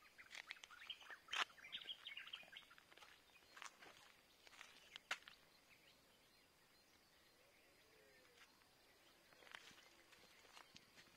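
Near silence: faint outdoor ambience with a few scattered light clicks and scuffs and a faint steady high tone, quieter through the middle.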